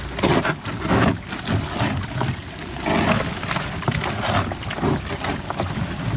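Motorboat running fast, with a low engine rumble under rushing, splashing water along the hull and wind buffeting the microphone in loud gusts.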